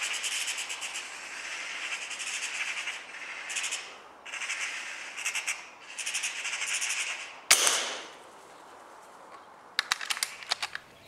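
Magpie chattering in repeated bursts of harsh, fast rattling calls. About seven and a half seconds in comes a single sharp shot with a short fading tail, then a quick run of sharp clicks near the end.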